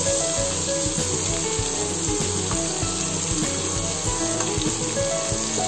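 Butter sizzling in a frying pan around a sirloin steak, with frequent small pops and crackles, as the hot butter is spooned over the meat to baste it.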